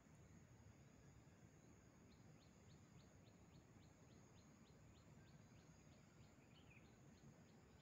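Near silence: faint outdoor ambience with a steady high whine. Through the middle, a faint run of short high chirps repeats about four times a second.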